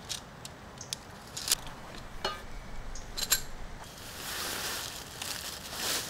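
Camping gear being handled, with a few light clicks and rustles. About four seconds in, a steady rustling of a tent groundsheet being spread out over leaf litter, louder near the end.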